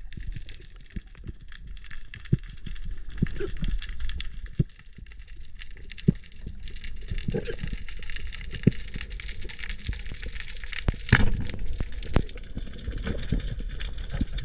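Underwater sound picked up by a diver's camera: a steady low water rumble under a constant fine crackle, with scattered sharp clicks and knocks, the loudest about eleven seconds in.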